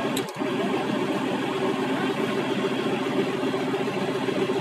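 Off-road 4x4's engine running steadily, one even engine note that holds without revving.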